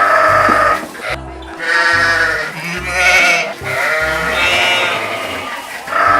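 A sheep or goat-type livestock animal bleating repeatedly: about five quavering bleats, each under a second long and roughly a second apart.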